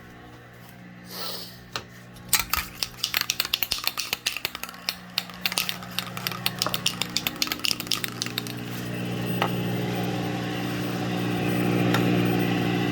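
A 1965 Curtis Mathes colour television set giving off a steady low electrical buzz, which grows louder over the second half and cuts off suddenly near the end. A burst of rapid, irregular clicking and clattering runs through the first half.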